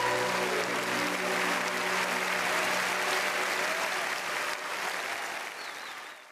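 Large theatre audience applauding, a dense steady clapping, with held notes of the closing music under it for the first few seconds. The whole sound fades out at the very end.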